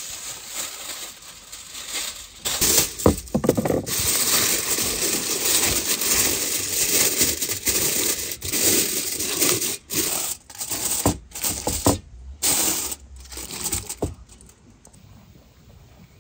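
Aluminium foil being torn off and crinkled as it is pressed down around the rim of a pot: a run of loud rustling and crackling with brief breaks, which stops near the end.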